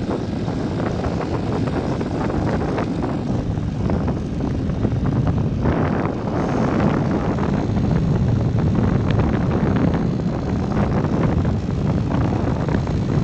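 Motorcycle engine running steadily at riding speed, with rushing air over the microphone from the moving bike.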